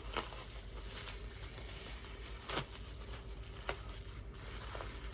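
Packaging being handled and unwrapped: faint rustling and crinkling, with a few short sharp crackles.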